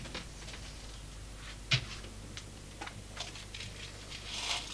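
Small, irregular clicks and taps of a watchmaker's hand tools and metal parts on the workbench as he fits a pin, with one sharper click a little under two seconds in and a brief rustle near the end.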